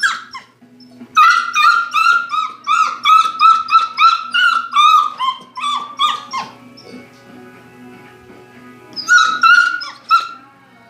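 Young dog whining in a quick run of high, falling yelps, about three a second for several seconds, then another short burst near the end, with television music faintly behind.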